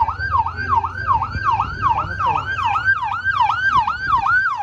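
Emergency-vehicle electronic siren in a fast yelp, its pitch sweeping down and back up about three times a second, over a low vehicle rumble.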